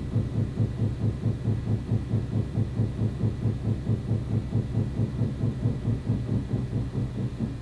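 A rapid, low, pulsing banging inside the walls, about four beats a second, that stops abruptly at the very end.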